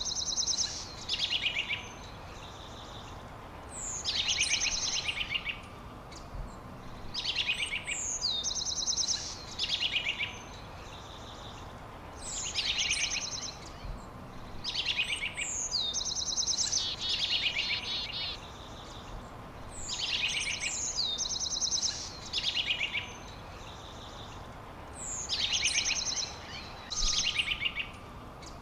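A songbird singing the same short high song over and over, one phrase about every four seconds, each a quick sweeping note followed by a fast trill, over a steady soft hiss.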